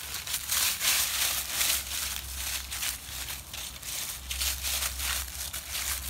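Dry fallen leaves crunching underfoot in a quick, irregular run of crisp crunches.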